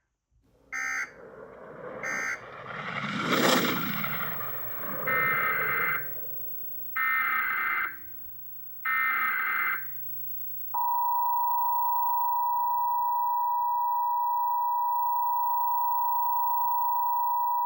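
Emergency Alert System data bursts and attention tone. First come two short end-of-message data bursts, shrill warbling buzzes, then a rush of noise that swells and fades around three and a half seconds in. Next come three roughly one-second header data bursts of the next alert, and from about eleven seconds in a single steady attention tone near 1 kHz.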